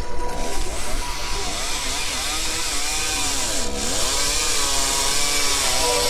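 Chainsaw cutting through a fallen tree trunk. Its engine pitch sags and recovers repeatedly as the bar loads in the wood, bogging down deepest a little past halfway.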